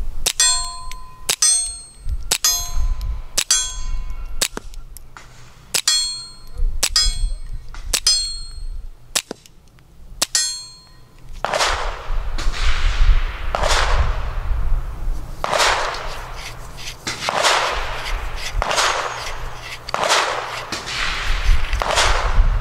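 Suppressed shots from a stainless Smith & Wesson Model 2206 .22 LR pistol, about a dozen at roughly one a second, each a sharp crack followed by a clanging metallic ring. About halfway through, the sound changes to a run of softer, drawn-out whooshing swells, about one a second.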